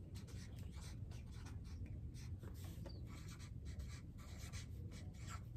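Felt-tip marker writing on a flip-chart pad: a faint, quick run of short strokes on paper.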